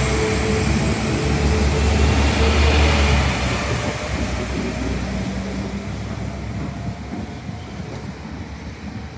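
Northern Ireland Railways Class 4000 diesel multiple unit pulling away past, its underfloor diesel engines running loud with a steady low engine note over the wheels on the rails. After about three seconds the sound fades steadily as the train moves off into the distance.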